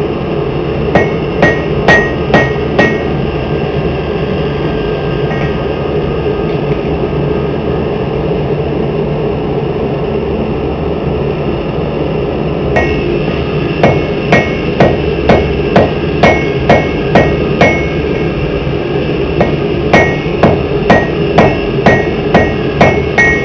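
Hammer blows on hot steel over an anvil while forging a tomahawk head, struck in quick runs of about two blows a second, each with a short metallic ring. The blows stop for about ten seconds after the first few, then resume in two further runs. A steady rushing noise runs under it throughout.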